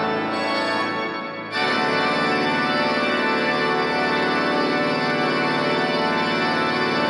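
The Hazel Wright pipe organ playing sustained chords. About a second and a half in, a fuller, brighter chord comes in suddenly and holds loud to the end.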